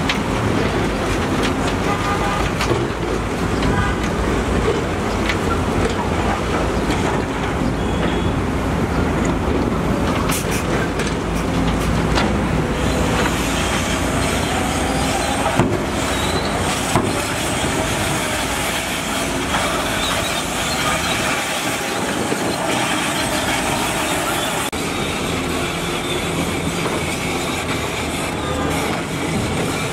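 Heavy earth-moving machinery working: a diesel engine running steadily with metal clanks and knocks, the sharpest between about a third and halfway through.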